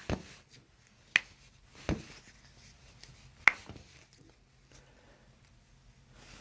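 Joints cracking during a chiropractic adjustment: two sharp pops, about a second in and at three and a half seconds, the second the louder, with a couple of dull thumps in between.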